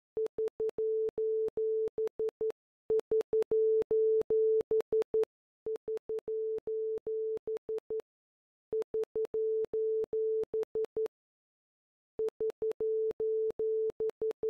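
Morse code: a single mid-pitched beep tone keyed in short and long signals, sent in five runs of about two seconds each with brief pauses between them.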